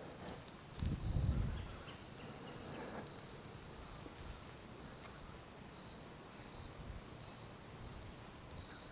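A steady, high-pitched insect chorus trilling without a break in the woods. A brief low rumble comes about a second in.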